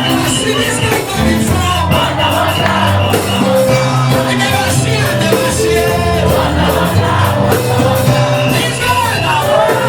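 Loud music with singing and a steady bass line, typical of a church praise session.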